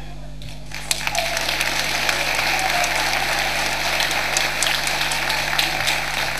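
Audience applauding. The clapping breaks out about a second in and keeps going steadily.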